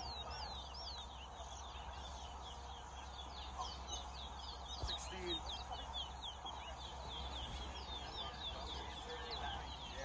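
Caged towa towa (chestnut-bellied seed finch) singing, a fast run of short falling whistled notes repeated steadily.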